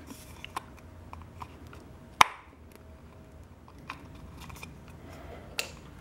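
Thin aluminium can rim being bent over with a small hand folding tool: faint crinkling and scraping with a few small clicks, and two sharp clicks, one about two seconds in and one near the end.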